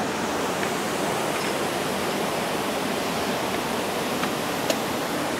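Steady rushing of water, even and unbroken, with a couple of faint clicks near the end.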